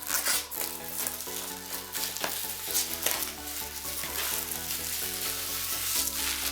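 Plastic shrink-wrap being torn and crumpled off a cardboard box, with a dense, continuous crackling, over background music.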